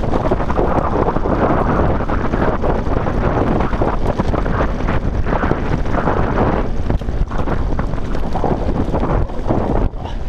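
Wind buffeting the microphone of a mountain bike's camera on a fast downhill, over the tyres crunching on loose gravel and rock and the bike rattling over bumps.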